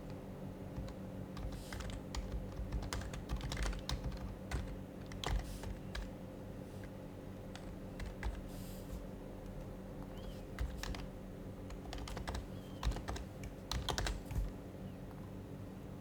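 Typing on an HHKB Professional HYBRID Type-S keyboard, its silenced Topre keys clicking in irregular bursts. There is a lull in the middle and the busiest bursts come near the end.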